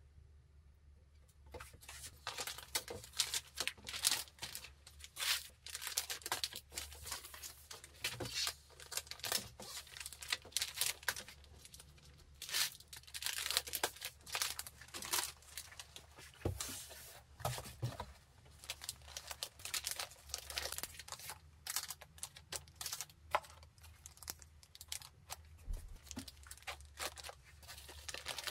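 Thin clear plastic packaging bags and bubble wrap crinkling and rustling under the hands, in dense irregular crackles that start about a second and a half in.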